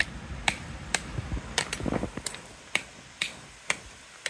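Yellow plastic peg hammer striking a metal tent peg, driving it into the ground: sharp, clicky taps, about two a second.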